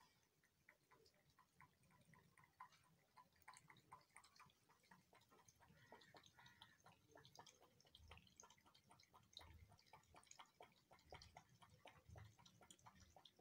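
Cat lapping water: faint, quick wet clicks of the tongue, about four a second.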